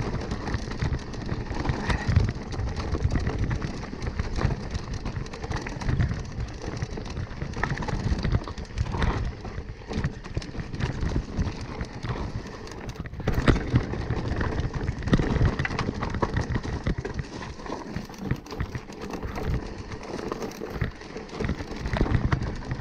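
Mountain bike riding down a dry, rocky trail: tyres crunching and skittering over loose stones, with frequent sharp knocks and rattles from the bike as it hits rocks.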